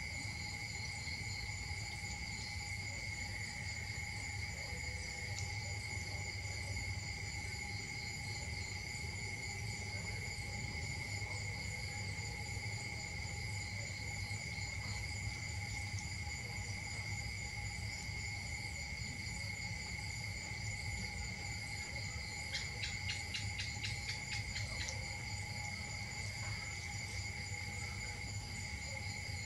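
Outdoor insect chorus: several insects trilling steadily at different pitches, with a brief quick run of clicks about 23 seconds in and a low rumble underneath.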